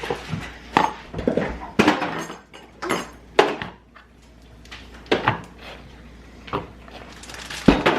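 Kitchen clatter: dishes, containers and utensils knocked and set down on a counter, about seven separate knocks spread out, with the loudest thump near the end.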